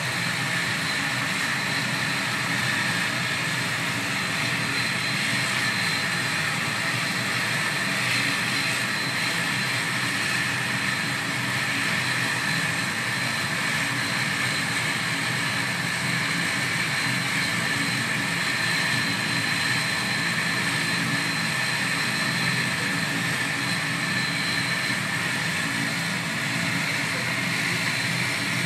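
Turboprop airliner's engines running with the propellers turning fast. It is a steady, unchanging drone with a high, constant whine over it.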